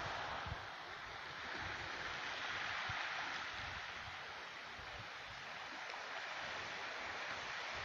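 Sea surf washing on the shore, a steady rushing hiss that swells and ebbs over a few seconds, with low gusty rumbles of wind on the microphone.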